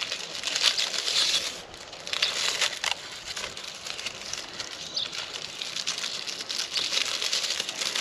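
Shiny ribbon crinkling and rustling in irregular handfuls as it is knotted onto a homemade bird-scaring scarecrow.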